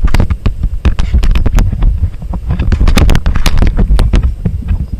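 Irregular sharp snaps and pops of airsoft gunfire and BB hits, several a second, over a heavy low rumble of wind and handling noise on a body-worn camera's microphone.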